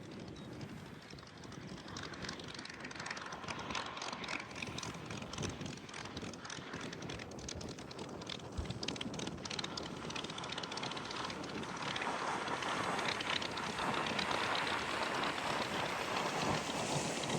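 Spitfire's Rolls-Royce Merlin V12 engine throttled back on the landing approach, a rough, crackling drone that grows steadily louder as the aircraft comes closer.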